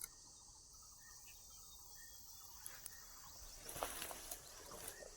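Faint, steady high-pitched chorus of insects, with a few short chirps over it. A brief rustling noise swells up a little before four seconds in.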